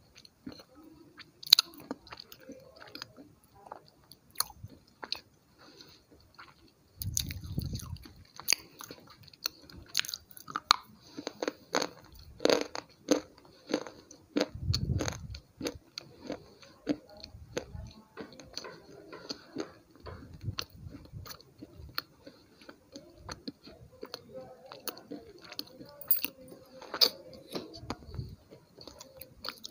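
Slate pencil pieces being bitten and crunched between the teeth, close to the mic: sharp, irregular cracks and crackles with chewing in between. There are heavier bursts of chewing about 7 seconds in and again about 15 seconds in.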